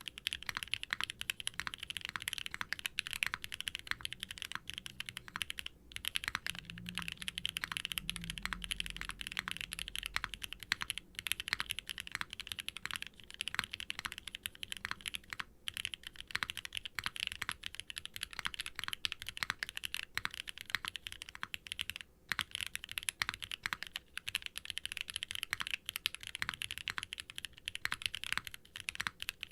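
Continuous fast typing on a Qwertykeys Neo80 Cu mechanical keyboard with NovelKeys Classic Blue linear switches and double-shot ABS keycaps, with no sound-dampening foam inside. The key strokes come in a dense stream, with brief pauses a few times.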